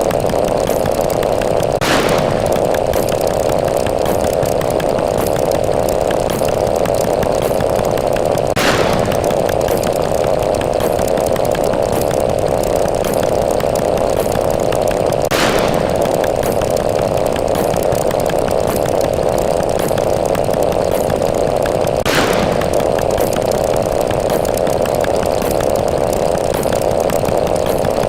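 Counting sound effects piled into a dense, steady, loud buzz. A brief sharper click cuts through it about every six to seven seconds, four times.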